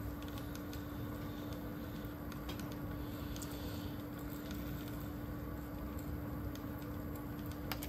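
Sony TC-K555ESL cassette deck fast-forwarding a test tape: a steady hum from the tape transport, with a couple of sharp clicks near the end.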